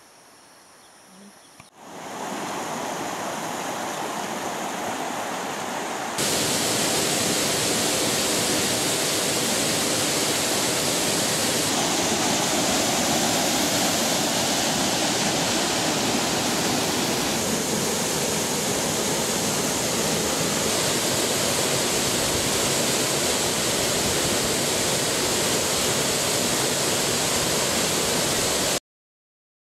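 Waterfall crashing into a pool: a dense, steady rush of water. It starts faintly, grows at about two seconds, steps up louder at about six seconds and cuts off just before the end.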